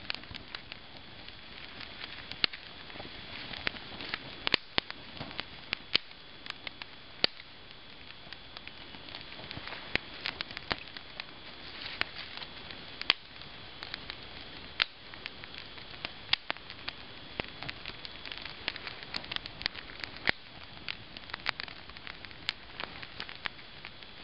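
A small fire lit by bow drill burning, with a steady hiss and frequent sharp, irregular crackling pops.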